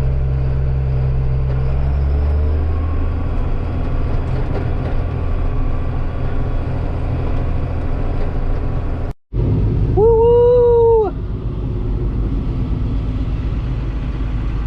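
A vehicle engine running steadily with a low rumble. The sound cuts out for a moment about nine seconds in. About ten seconds in, a man gives a loud whoop of "Woo!" lasting about a second.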